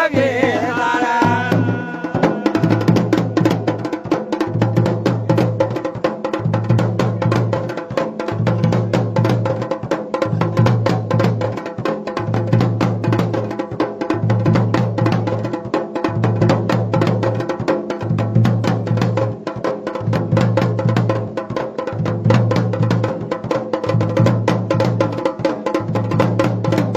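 Dhol and damau drums playing a fast, dense rhythm, with a low note that breaks off and returns about every two seconds. A sung voice trails off in the first second or two.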